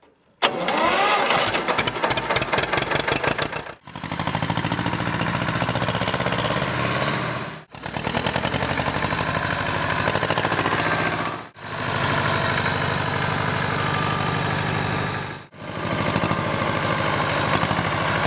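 Ursus C-328 tractor's two-cylinder diesel engine running steadily, in several short stretches joined by brief cuts about every four seconds.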